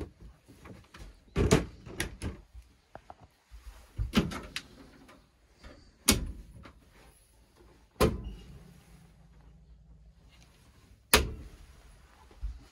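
Caravan cupboard doors and the grill and oven doors being opened and shut by hand: a series of sharp wooden knocks and latch clicks, about six of them, a second or two apart.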